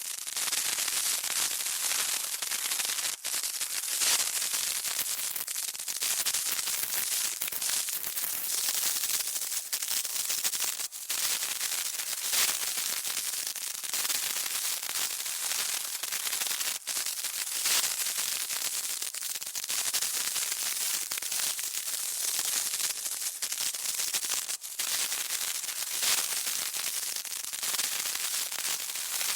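A burning fuse sizzling: a continuous high hiss with crackle, wavering slightly in loudness.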